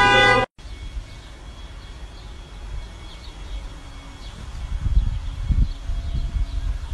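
A loud, steady blaring tone cuts off abruptly about half a second in. It gives way to a quiet outdoor background with faint bird chirps and, in the last two seconds, low rumbling thumps.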